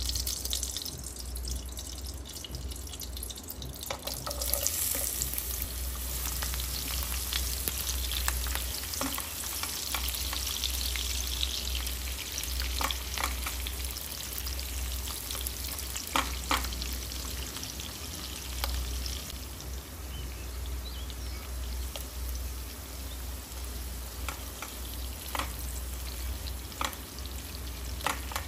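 Food frying in hot oil in a pan, a hiss that grows about four seconds in, with a spoon stirring and several sharp clicks of the utensil against the pan. A steady low hum runs underneath.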